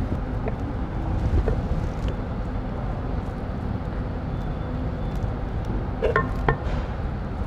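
Steady low rumble of workshop background noise, with a few faint clicks of hand work on the robot's motor and a couple of brief metallic clinks about six seconds in.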